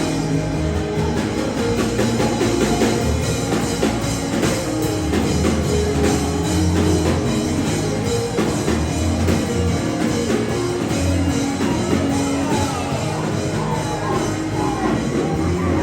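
Live worship band music with a drum kit and steady bass notes, with a voice over it.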